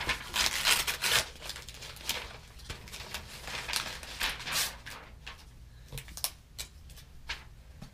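Cardboard packaging being torn and pulled open by hand, with irregular rustling and scraping of card and paper, busiest in the first few seconds and sparser near the end.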